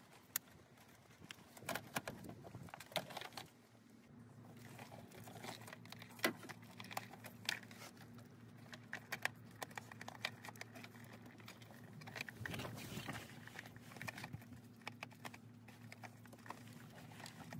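Scattered light plastic clicks, taps and rattles as an engine-bay fuse box and its ribbed plastic cover are handled and fitted into place. A faint steady hum runs underneath.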